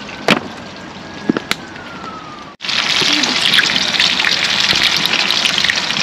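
Two whole snapper frying in hot oil in a pan. A loud, dense sizzle and crackle starts abruptly about halfway through. Before it there is a quieter background with a few sharp clicks and a faint tone that slides up and down.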